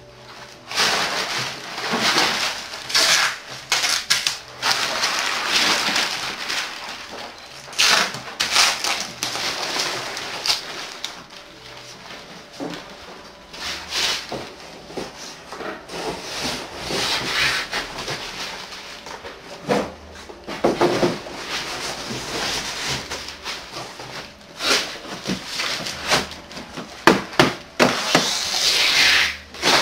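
Packing paper and corrugated cardboard being handled: irregular rustling, crinkling and scraping, with a few sharp knocks of cardboard, as a framed picture is wrapped and packed into a cardboard carton.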